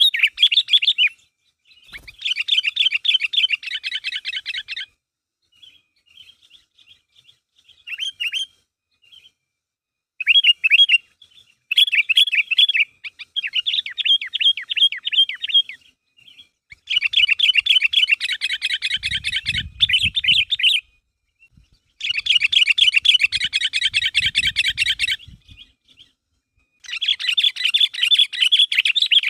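Sooty-headed bulbul (kutilang) singing in long, rapid chattering phrases of a few seconds each, separated by short pauses. This is the lively, full song used to prompt other bulbuls to answer.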